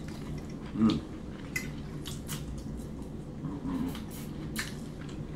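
Forks clicking and scraping lightly on a tray as fish is picked apart, a few separate light clicks spread over several seconds.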